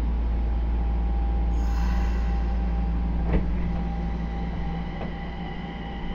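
Nagoya Municipal Subway 2000 series train running, heard from inside the car: a steady low rumble with a few held tones and a single knock about three and a half seconds in.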